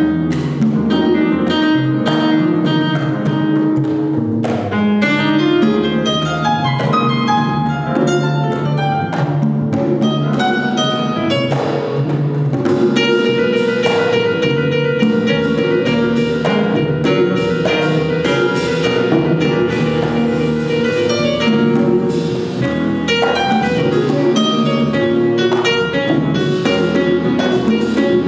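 Jazz ensemble playing live: stage piano, plucked double bass, congas and drum kit, with one long held note through the middle.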